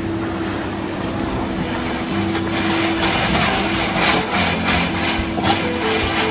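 Background music with long held notes that change every second or so, over a steady rushing noise.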